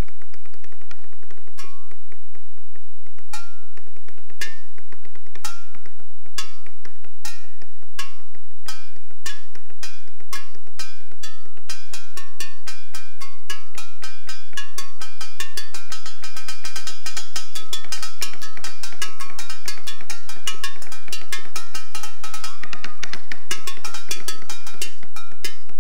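Kitchen cleaver and knife blades striking upturned stainless steel bowls and enamel basins as percussion, each hit ringing with a metallic tone. The strikes come about a second apart at first, then speed up into a fast, continuous roll of ringing hits from about halfway in.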